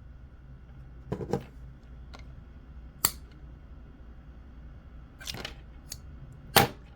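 Hand cutters clipping wire: a few sharp snaps and clicks spread over several seconds, the loudest near the end.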